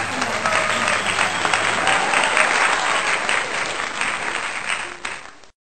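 Applause: many hands clapping at once in a dense patter, stopping abruptly near the end.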